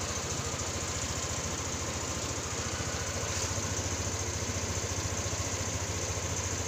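Yamaha Aerox scooter's single-cylinder engine idling steadily on its stand, an even, rapid pulsing.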